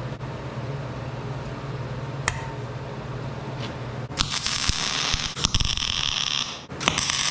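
Wire-feed welder tack-welding a steel bracket: a steady low hum and a metal clink about two seconds in, then the arc crackling from about four seconds in, in two runs with a short break near the end.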